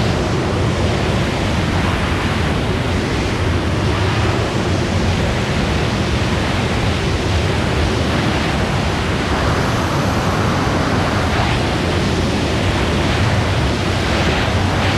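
Steady, loud rush of freefall wind across a helmet-mounted camera's microphone as skydivers fall at speed.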